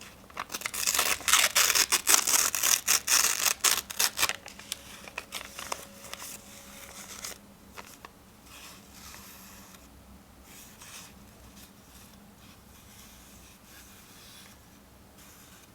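Paper being torn: a loud, crackly rip lasting about four seconds, followed by quieter rustling of the sheets that fades to faint soft handling sounds.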